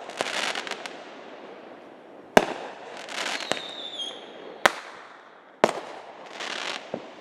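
Fireworks going off: four sharp bangs a second or two apart, with crackling between them and a high whistle around the middle that drops slightly in pitch at its end.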